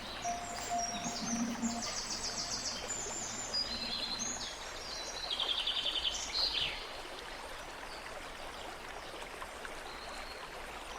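Birds singing in high, rapid trills, in two bouts over the first seven seconds or so, over a steady rushing noise like running water.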